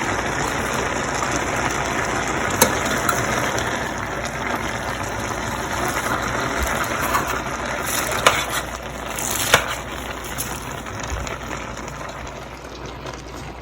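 Pot of chicken and freshly added cabbage sizzling steadily, slowly easing off toward the end, with a few sharp clicks.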